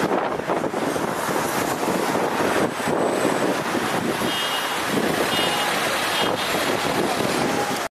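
Wind buffeting the microphone over road noise from a moving car among a convoy of cars on a highway. A few faint high beeps come in the second half, and the sound cuts off abruptly near the end.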